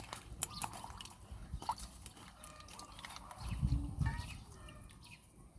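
Water dripping and splashing as a handful of thick herb leaves is rinsed clean by hand, with scattered small clicks and ticks. There is a low dull rumble of handling about three and a half seconds in.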